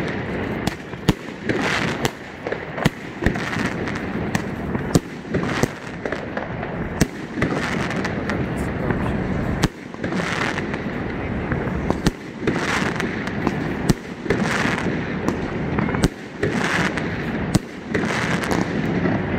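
Aerial fireworks bursting overhead: many sharp bangs at irregular intervals, with stretches of crackling from the glittering stars between them.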